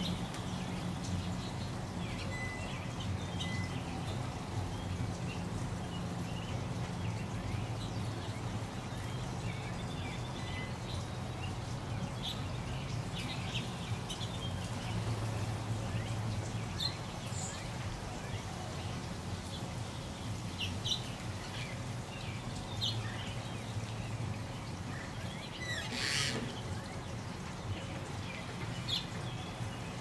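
Water trickling over pebbles in a shallow garden stream, a steady wash of sound, with short bird chirps scattered through it and one brief louder sound near the end.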